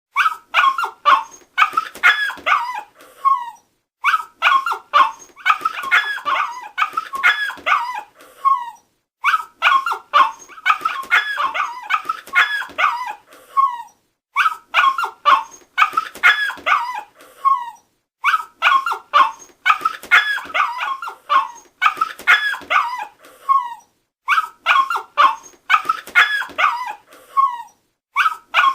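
Dog barking and yipping with whimpers, in runs of a few seconds separated by short silences; each run ends in a falling whine, and the same pattern repeats about six times.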